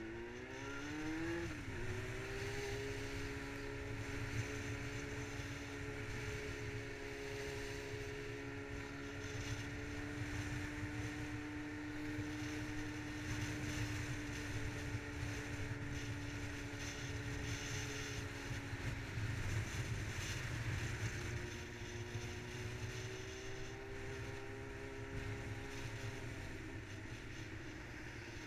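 Yamaha R6 sport bike's inline-four engine pulling up through the revs at the start, then cruising at a steady pitch. It eases off about two-thirds in and picks up again to a steady cruise, with wind rushing over the microphone throughout.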